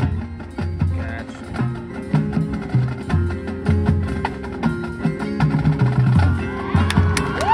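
Marching band playing its field show, with many short, sharp percussion strikes over pulsing low bass notes and held horn tones.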